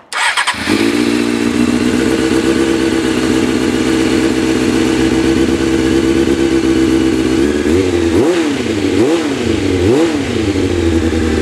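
Motorcycle engine cranked on its electric starter and catching straight away, then idling steadily with the radiator cap off to purge air during a coolant refill. Toward the end the throttle is blipped three times, the revs rising and falling quickly each time.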